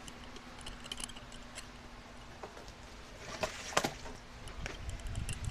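Handling noise of a phone camera being carried while walking: scattered light clicks and taps, with a sharper knock about four seconds in. A faint steady hum stops about three seconds in.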